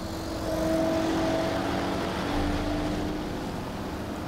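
Motor traffic: a vehicle engine's low hum over a steady rush of traffic noise, swelling about a second in and easing off toward the end.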